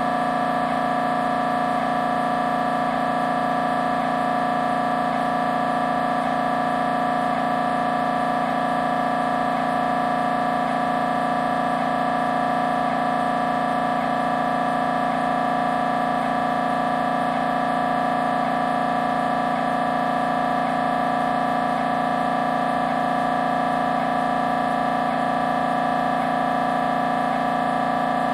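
Siemens Symphony Maestro Class 1.5 T MRI scanner running an imaging sequence: its gradient coils give a loud, steady buzzing tone, with a faint tick repeating about once a second.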